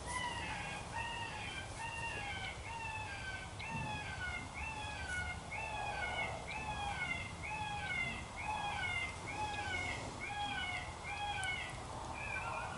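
Primos Dogg Catcher electronic predator call playing a prey-distress sound through its speaker: a high squeal repeated about twice a second, each note rising then falling in pitch.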